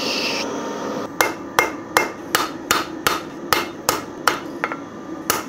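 Steel hammer striking a hot steel knife blade on an anvil: a quick, even run of light blows, about three a second, starting about a second in. These are small forging taps that square up and sharpen the edges of the blade's spine.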